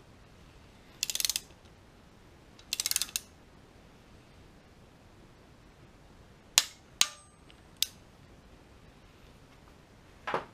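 Torque wrench ratcheting in two short strokes while tightening a rocker arm bolt on an LS cylinder head, followed a few seconds later by three sharp metallic clicks and a short rattle near the end.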